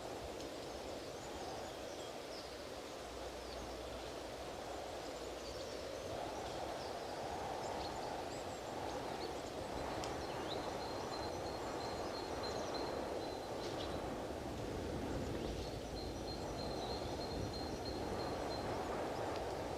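Strong wind rushing steadily through trees and over the microphone. Small birds call thinly above it, with scattered chirps and two long high trills in the second half.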